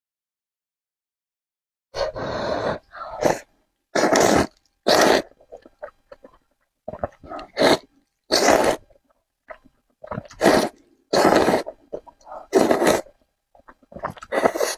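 Close-miked eating sounds: after a brief silence, a run of about a dozen loud slurps of noodles, each about half a second long.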